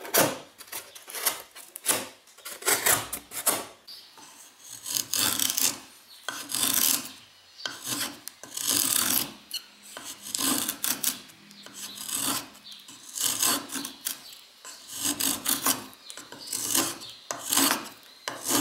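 Handmade 5160 steel bushcraft knife carving a wooden stick, shaving off curls in repeated scraping strokes, about one or two a second.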